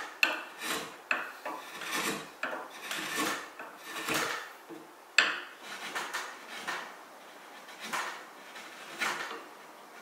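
A wood chisel paring the chamfered end of a hardwood rail by hand: about a dozen short, irregular scraping strokes, some starting with a sharp click.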